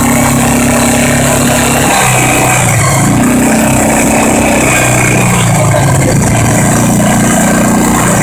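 Four-wheeler (ATV) engine running while riding, its pitch dropping and picking up again a few times as the throttle changes.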